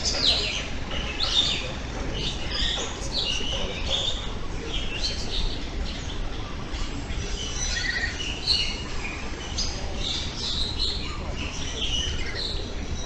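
Mixed chorus of many tropical aviary birds calling at once: dense, overlapping short chirps and whistles over a steady low rumble.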